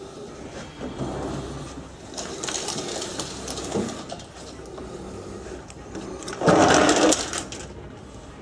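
A screen door being opened: one loud noise lasting under a second, a little past halfway, after softer handling noises.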